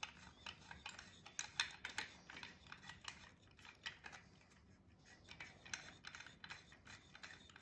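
White plastic sections of an MII Ret Cam retinal camera handled and screwed together: faint, irregular small clicks and ticks of plastic on plastic as a long screw is turned by hand to join the parts.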